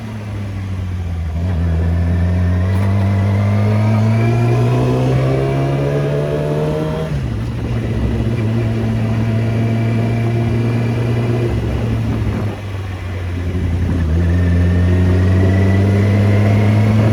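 Nissan 300ZX's V6 engine and exhaust pulling through the gears. The revs climb slowly for several seconds and drop at a shift about seven seconds in. After a steady stretch there is a brief dip around twelve seconds in, and then the revs climb again.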